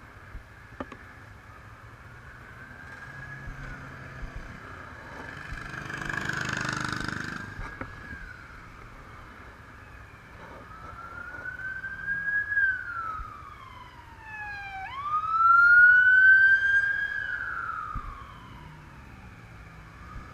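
Emergency-vehicle siren wailing, its pitch sliding slowly up and down; it grows louder, dips and sweeps sharply back up about fifteen seconds in, is loudest for the next two seconds, then fades. A passing vehicle adds a rush of noise about six seconds in.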